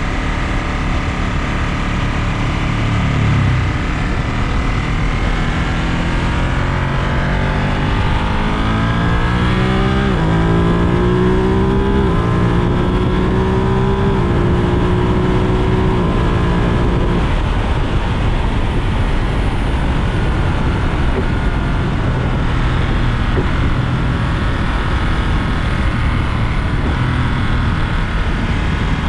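Ducati Monster 937's Testastretta L-twin engine accelerating hard, rising in pitch and dropping sharply at several quick upshifts through the quickshifter, then running on at a steadier pitch.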